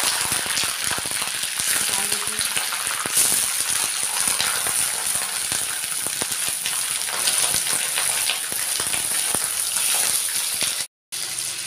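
Raw chicken pieces sizzling and crackling in hot mustard oil in a kadai, the sizzle flaring up as more pieces are dropped in. The sound cuts out briefly near the end.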